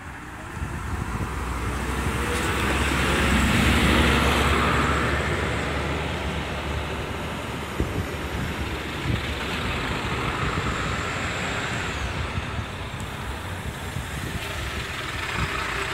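Diesel city buses pulling away past at close range: engine rumble and road noise swelling to a peak about four seconds in, then running on steadily. Two short knocks come about eight and nine seconds in.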